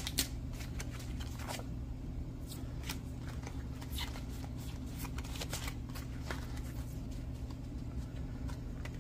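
Pokémon trading cards being handled by gloved hands, cards sliding against one another with scattered faint flicks and rustles, over a low steady hum.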